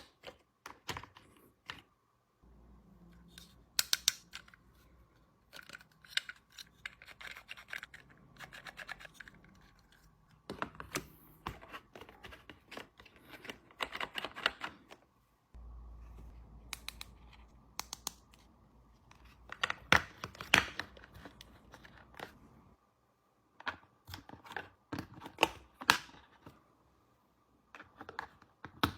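Small plastic toy kitchen pieces and their packaging being handled: irregular clicks, taps and scratching, with short spells of rustling.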